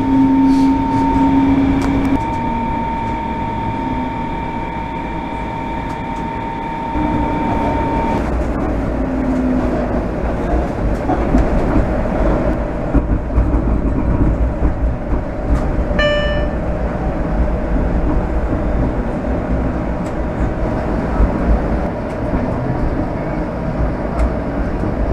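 Bombardier Flexity Outlook streetcar's electric traction drive whining inside the car, its steady tones shifting in pitch as it moves. After about seven seconds this gives way to a louder low rumble of streetcars and traffic on the street, with a short ringing tone about sixteen seconds in.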